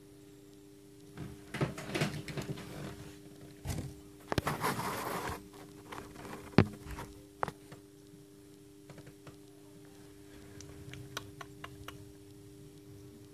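A hatching chick scratching and tapping at the inside of its pipped eggshell: scattered bursts of scratchy rustling and clicks, loudest in the first half, with one sharp click midway, over a steady low hum.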